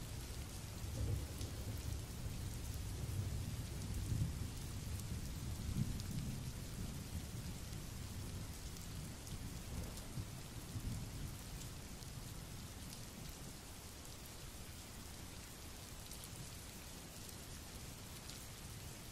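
Heavy rain with low, rolling thunder that rumbles and swells through the first half, then the storm slowly dies away.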